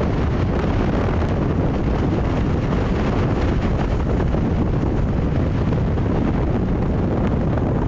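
Strong wind buffeting the microphone in a steady low rumble, over the noise of breaking sea surf.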